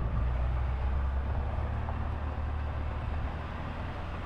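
Vehicle driving, with a steady low engine and road hum.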